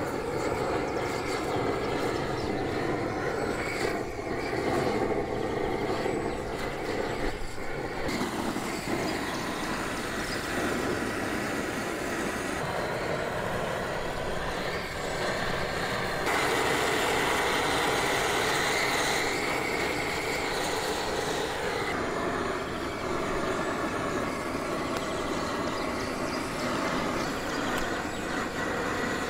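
Gas blowtorch flame burning with a steady rushing hiss as it singes the wool off a ram's head, a little louder for a few seconds past the middle.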